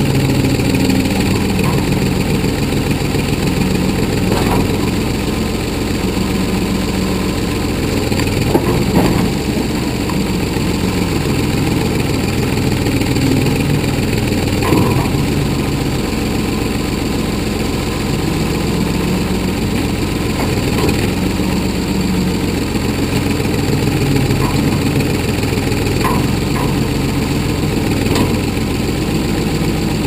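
A 1981 Ford 555 backhoe's engine runs steadily while the boom and bucket dig, its pitch stepping up and down as the hydraulics take load. A few short sharp knocks come through over the engine.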